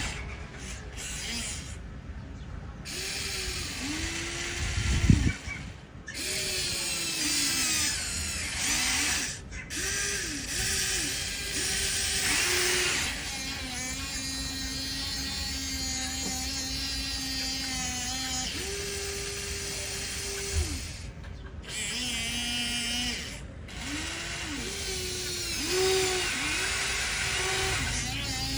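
Electric gear motors of a toy RC excavator whining in repeated short runs, each spinning up and winding down as a control is worked, with a few longer steady runs between.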